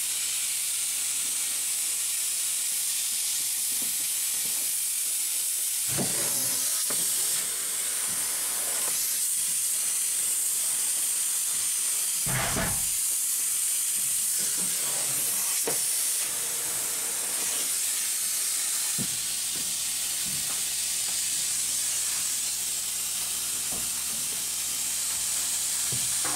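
Spray foam insulation gun hissing steadily as it sprays foam, with a few brief knocks along the way.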